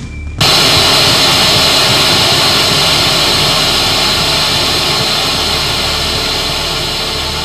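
Analog television static: a loud, steady hiss that cuts in suddenly about half a second in and eases slightly toward the end.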